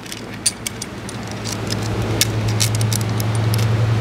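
Loose saw chain clinking on a Stihl Light guide bar as the bar is handled and fitted to the chainsaw: a scatter of small metallic clicks. Behind it a steady low hum grows louder from about a second in.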